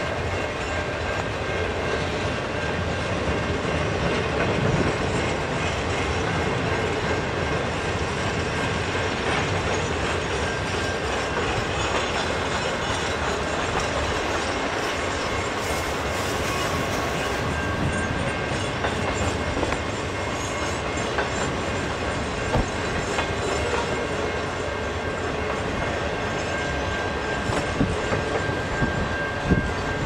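Freight train of flatcars loaded with continuous welded rail rolling steadily past: a constant wheel-on-rail rumble with a light clickety-clack.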